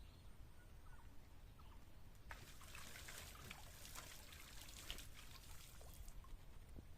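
Water trickling and splashing faintly, starting about two seconds in and stopping about a second before the end, over a steady low rumble.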